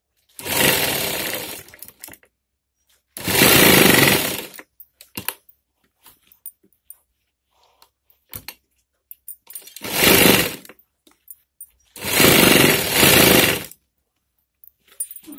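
Sewing machine stitching in four short bursts, each up to about a second and a half long, the third one brief, with small clicks in the pauses between bursts.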